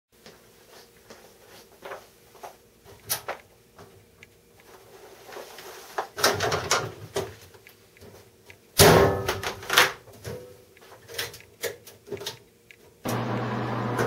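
Handling of a top-loading washing machine: its lid is lifted and shut amid knocks and clatter, and the loudest are two clanks a second apart about nine seconds in. Near the end, loud music with a strong bass starts suddenly.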